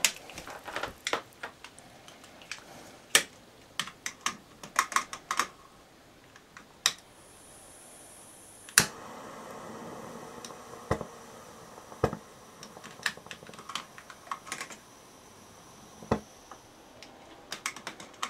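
Lighter clicking repeatedly in irregular runs of sharp clicks while relighting the gas burner of a Mamod SP7 model steam engine. A soft hiss of gas runs for a few seconds around the middle.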